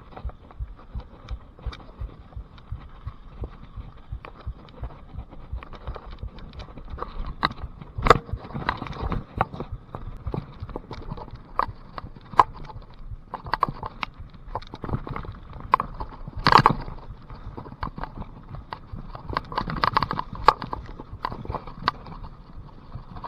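Mountain bike ridden over a muddy, rough trail: a constant stream of clicks, rattles and knocks from the bike and tyres over the ground, with heavier jolts now and then.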